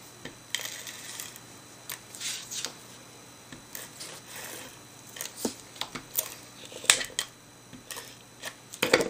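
An adhesive tape runner drawn in short rasping strokes over the back of patterned paper, with scattered clicks and taps of paper being handled and pressed onto cardstock.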